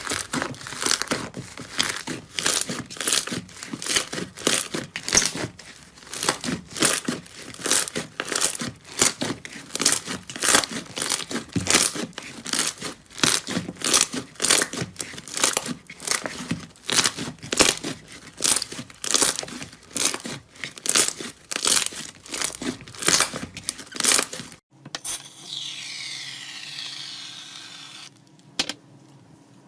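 Slime being squeezed and pressed by hand in a steady rhythm, crackling and snapping about twice a second. About 25 seconds in it cuts to a softer, steady hiss.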